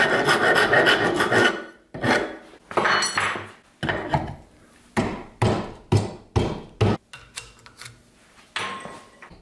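A wood rasp scraping across the end of a white oak axe handle: one long stroke at the start, then shorter strokes with gaps between them. Later come short scrapes and knocks as the steel hewing-axe head is slid onto the handle to test the fit.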